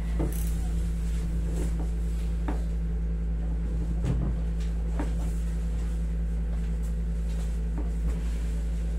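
Steady low hum of a room air conditioner, with a few light knocks and rubs scattered through it from hands working on a person on a padded massage table.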